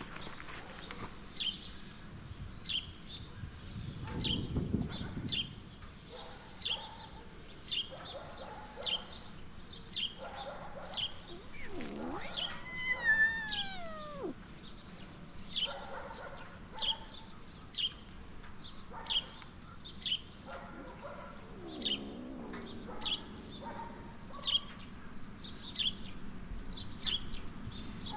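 A small bird chirping over and over, one short high chirp about every second. About halfway through, a cat gives one long meow that slides down in pitch, the loudest sound.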